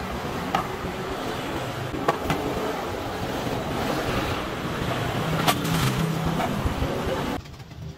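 Steady street traffic noise from passing cars and vans, with a few sharp clicks and knocks from plastic chairs and glassware being handled at an outdoor table. The traffic noise cuts off suddenly near the end, leaving a quieter background.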